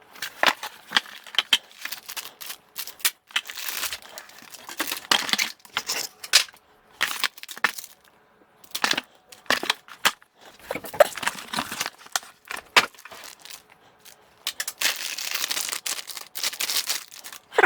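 Packaging being handled and opened: crinkling and tearing of wrapping, with scattered clicks and knocks, and two longer spells of rustling about four and fifteen seconds in.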